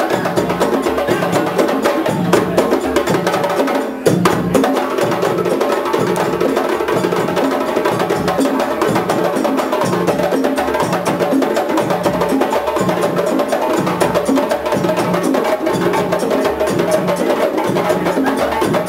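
Several djembes played together by hand in a steady, driving rhythm.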